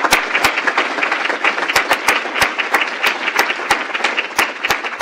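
Audience applauding steadily, many hands clapping, with some louder single claps standing out.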